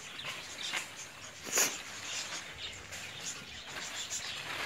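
Plastic tarpaulin rustling and crackling as it is lifted and pulled, with one louder crackle about one and a half seconds in; bird chirps mixed in.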